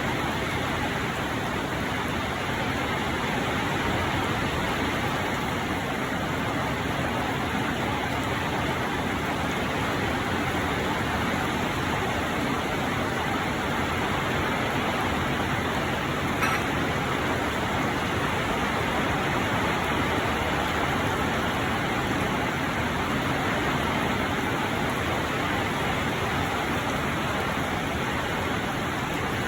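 Rain falling steadily, an even hiss with no break; one brief click about halfway through.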